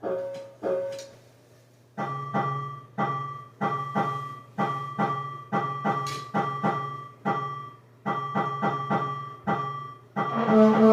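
Piano-like keyboard music: a run of struck notes, each fading quickly, about two a second, with fuller, louder chords near the end.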